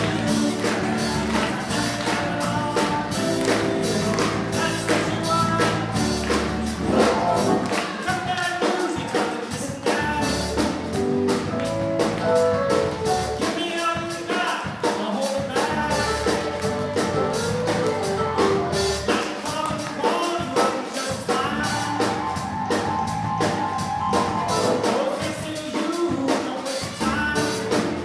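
Live band music with a drum kit keeping a steady beat under guitar and other instruments.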